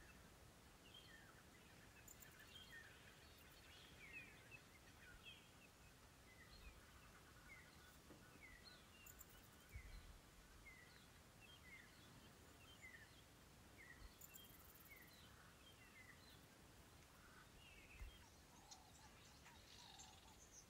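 Faint wild bird calls: a steady series of short falling chirps, about one or two a second, over quiet bush ambience.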